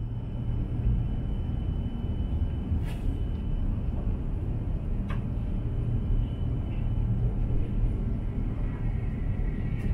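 Steady low running rumble of an H5 series shinkansen heard inside the passenger cabin as the train moves through a station, with two faint clicks about three and five seconds in.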